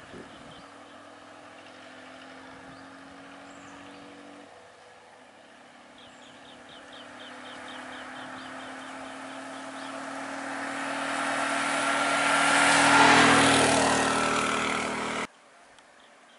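A TVS auto-rickshaw's engine running, then pulling away and coming close, growing steadily louder to a peak about 13 seconds in. The sound cuts off abruptly near the end.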